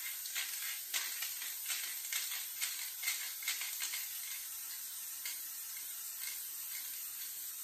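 Aerosol spray-paint can hissing in short repeated bursts, about two a second, as paint is sprayed onto a metal panel. The bursts thin out after about five seconds, leaving a fainter steady hiss.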